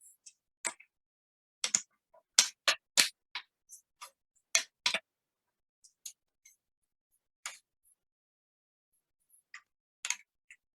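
Irregular sharp clicks and taps of plastic laptop case parts being handled and snapped into place during reassembly. There is a quick run of them in the first five seconds, then a few scattered ones.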